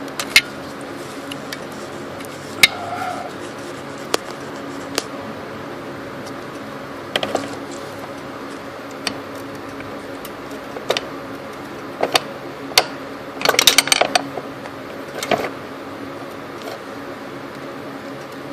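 Scattered sharp clicks and knocks of hands working around an engine's drive belt, with a quick cluster of them about two-thirds of the way through, over a steady hum.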